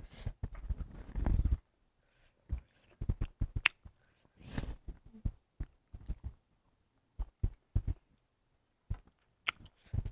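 Scattered clicks, taps and light knocks of eating at a meal, after a second and a half of denser rustling and thudding.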